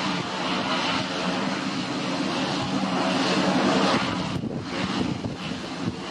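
Jet engines of a Boeing 737 MAX airliner running, a steady rush with a low hum, growing louder for about four seconds and then easing.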